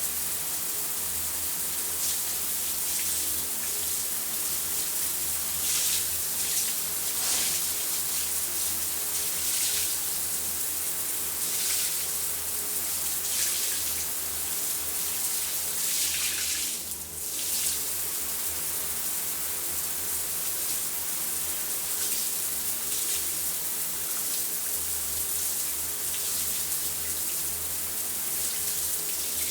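Shower running steadily, its spray hissing and splashing with shifting patches of stronger spatter; the sound thins briefly about halfway through.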